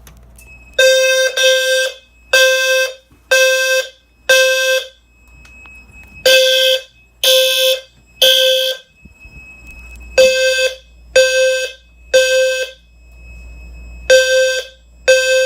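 Fire alarm low-frequency sounder (a roughly 520 Hz tone with many overtones) sounding the temporal-three evacuation pattern: three half-second pulses, a pause, then three again, repeating. A thin steady high beep runs underneath.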